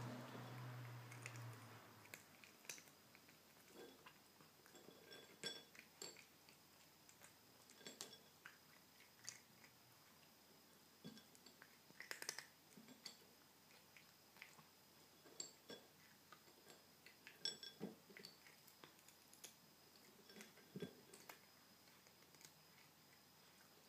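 A kitten chewing dry filled kibble: quiet, irregular crunches, with an occasional light clink of kibble or teeth against the ceramic plate.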